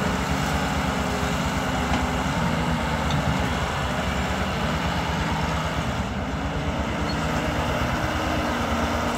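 Diesel engine of a Hyundai Robex 1300W wheeled excavator running steadily while the machine swings its boom to load soil.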